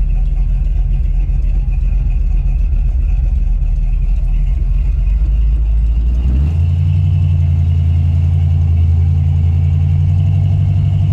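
1969 Dodge Super Bee's V8 engine heard from inside the cabin, running steadily at low speed. About six and a half seconds in, the engine note jumps up and holds higher as the car accelerates away.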